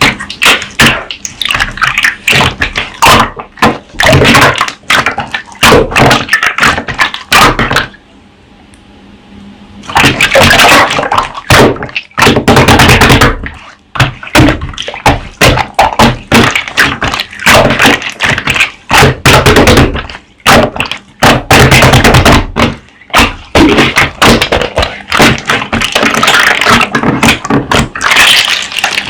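Slime being squeezed, poked and pressed by hand, giving a dense run of sharp crackling and popping clicks, with a brief quieter pause about eight seconds in.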